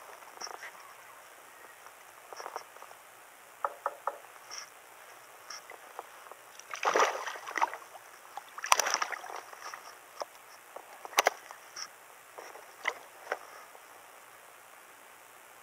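A hooked largemouth bass thrashing and splashing at the surface while it is played in, with the two loudest splashes about seven and nine seconds in. Scattered small clicks and knocks run between them, with a sharp knock about eleven seconds in.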